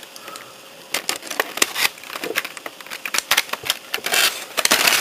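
Clear plastic packaging crinkling and crackling as it is handled, a run of irregular sharp crackles.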